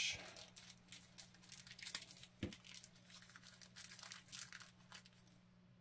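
Faint crinkling and rustling of small plastic packaging being handled, with irregular light clicks and a sharper knock about two and a half seconds in.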